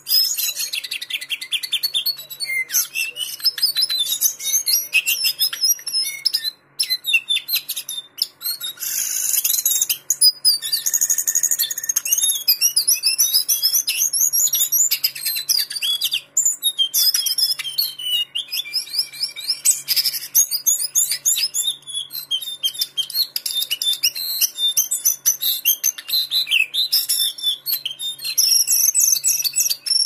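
Lesser shortwing singing a long, varied song of rapid high-pitched warbling notes and trills, with a couple of brief pauses.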